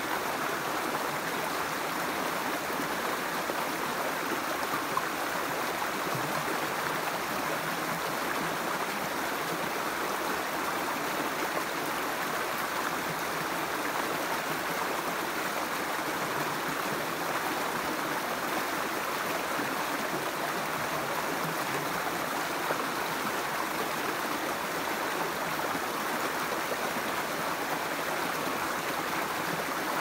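Shallow forest creek flowing steadily: an even rush of running water with no change in level.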